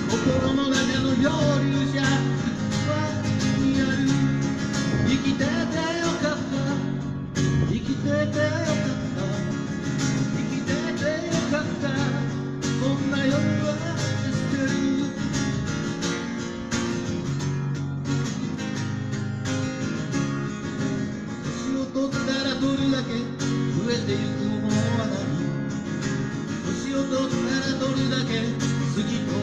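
Acoustic guitar strummed steadily through a live song.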